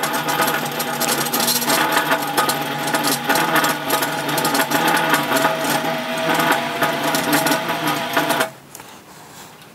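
Bead roller running, its geared rollers turning a 3-inch steel exhaust tube with a steady whir and fast mechanical rattle. It cuts off suddenly about eight seconds in, and a few light clicks follow.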